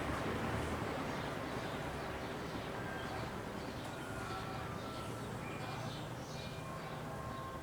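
56-inch Canarm industrial ceiling fan coasting down after being switched off, its rush of air slowly fading. Birds chirp faintly throughout.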